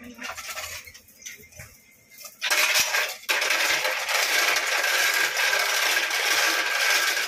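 Light metal clinks of hand tools against engine parts, then a sudden loud steady hiss starts about two and a half seconds in, dips briefly, and carries on.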